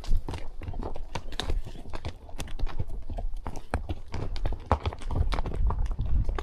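A horse walking on a trail: its hooves strike the ground in a steady, irregular run of clops and clicks.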